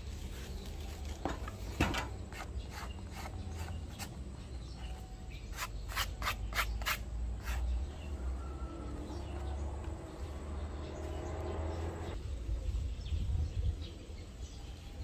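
A hand rubbing and handling the painted airframe of an RC SU-27 model plane, with a run of light clicks and taps in the first half, over a steady low background rumble.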